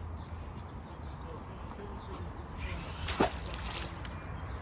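A magnet on its rope swishes through the air in one short, sudden throw about three seconds in, sharpest at its peak.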